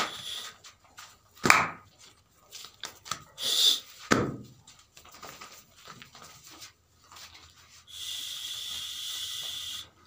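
Goats moving about in a straw-bedded pen: scattered rustles and knocks, with two short, loud goat calls about a second and a half and four seconds in. A steady hiss runs through the last two seconds.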